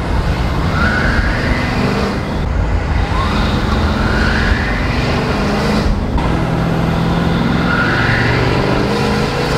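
Cummins 5.0-litre V8 turbo-diesel in a Nissan Titan XD, tuned and breathing through a 4-inch exhaust, pulling hard as the truck accelerates, heard from inside the cab. A whistle rises in pitch three times over the engine, with short dips in between.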